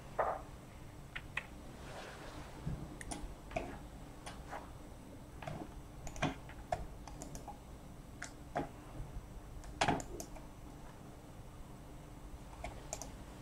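Scattered clicks of a computer keyboard and mouse, a dozen or so at irregular intervals, over a faint steady hum.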